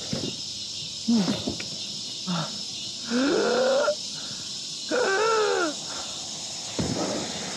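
A man's voice letting out a series of drawn-out howls, about five, each gliding up and then falling in pitch, the longest near the middle lasting close to a second.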